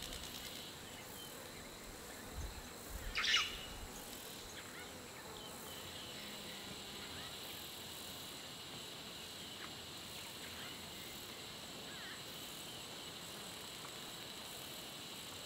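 Faint outdoor bush ambience: a steady high-pitched insect drone, with a short bird call about three seconds in.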